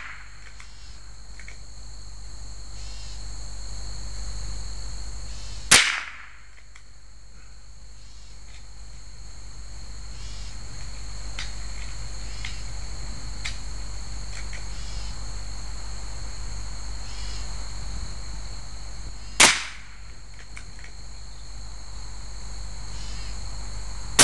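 Two .22 rifle shots, about six seconds and about nineteen seconds in, each a sharp crack with a short ringing tail. Steady high insect chirring runs underneath.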